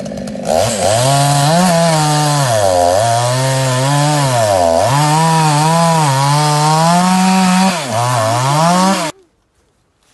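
Chainsaw running and cutting through logs, its engine pitch dropping three times as the chain loads up in the wood and climbing back each time. It stops abruptly about nine seconds in.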